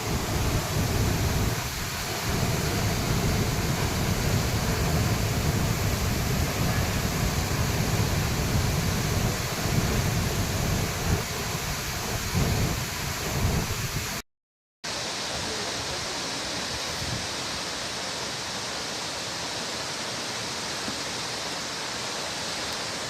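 Courtallam waterfall in heavy flood: a dense, steady rush of falling water, heavy in the low end. About fourteen seconds in, the sound cuts out for half a second, then comes back steadier with less low rumble.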